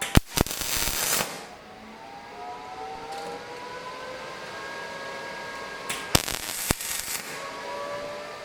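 Welder tack-welding steel: two short bursts of arc crackle, each about a second long, one near the start and one about six seconds in, each starting and stopping with a sharp click.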